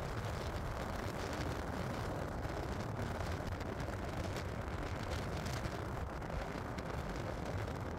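Steady low rumbling noise of a night thunderstorm, even in level throughout, with no distinct thunderclap.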